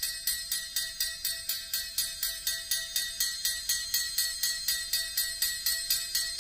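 Amplified triangle tapped steadily with a metal beater, about three even strokes a second, each ringing with high metallic overtones.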